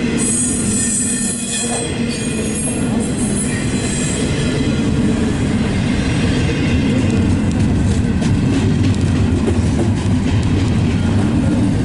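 Freight train rolling past at close range: a steady low rumble of the cars, with steel wheels squealing high for the first few seconds, then fading into wheels clacking over the rails.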